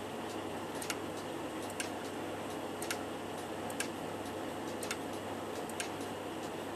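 Hermle 1161-853 grandfather clock movement ticking evenly, about one tick a second, as the repaired movement runs on test.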